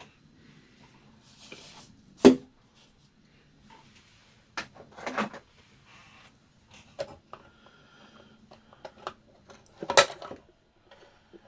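Tools and small hard objects being handled and set down on a workbench: scattered sharp knocks and clinks, the loudest about two seconds in and about ten seconds in.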